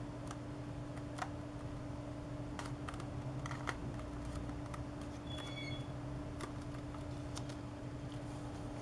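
Origami paper being folded and creased by hand: sparse small crackles and taps of paper and fingertips, over a steady low hum.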